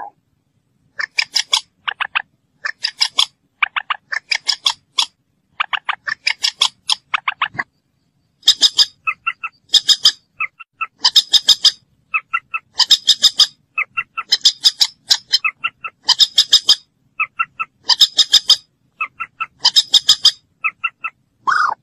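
Moorhen calling: short bursts of rapid, harsh clicking notes, repeated about once a second with clean silent gaps between. Some bursts sit higher and sharper, others lower.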